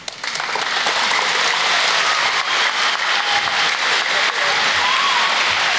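Audience applauding, breaking out suddenly just after the start and keeping up steadily.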